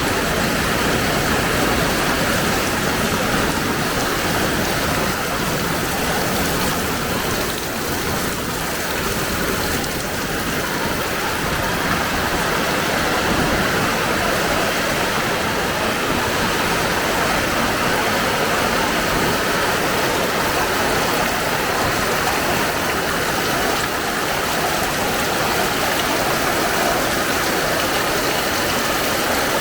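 Heavy rain falling steadily, a dense even hiss with water running and splashing on the ground.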